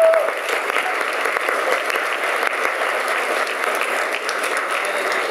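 A crowd applauding steadily, with a short voice heard over it right at the start.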